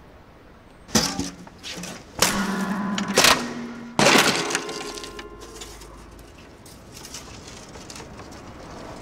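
Acoustic guitar being smashed, four hard blows with the wooden body cracking and splintering. Its strings jangle and ring on after the last blow, fading away.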